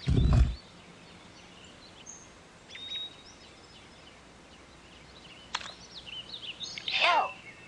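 Cartoon soundtrack: a loud low sound cuts off just after the start, then quiet outdoor ambience with faint, scattered bird chirps. Near the end a run of chirps builds into a loud warbling call that falls in pitch.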